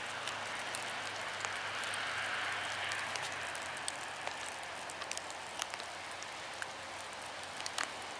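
Wet snow falling: a steady hiss with many scattered light ticks of flakes and drips striking nearby surfaces.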